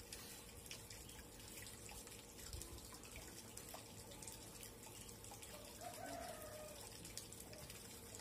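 Near silence: faint steady background hiss with a low steady hum and a few soft ticks.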